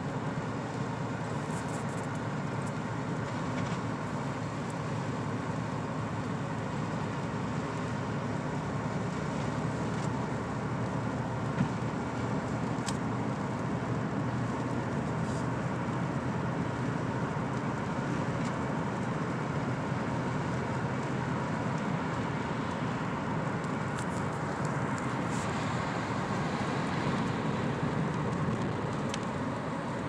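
Steady in-cabin road noise of a car driving on a snowy highway: a constant hum of tyres and engine, with one brief click about twelve seconds in.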